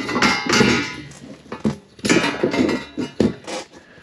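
Copper pipes knocking and clinking against each other and against plastic pipe clips as they are pushed into place: a series of knocks, some with a brief metallic ring.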